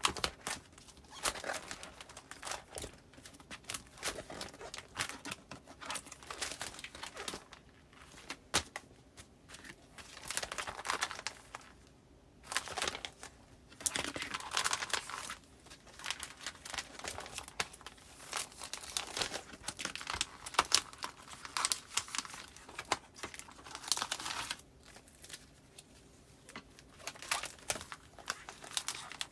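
Paper postcards and plastic file sleeves being handled: crinkling, rustling and sliding in irregular bursts with small clicks, pausing briefly a few times.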